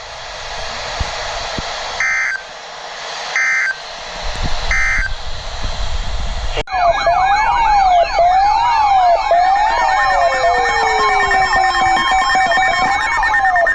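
Weather-radio hiss broken by three short data bursts a little over a second apart: the EAS end-of-message code. About six and a half seconds in, it cuts sharply to loud overlapping electronic siren tones, several wailing up and down at once and one falling slowly, over a steady high tone.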